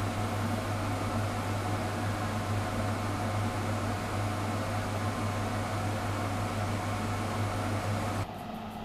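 Solder fume extractor fan running steadily, a low motor hum under a hiss of moving air. It cuts off suddenly near the end.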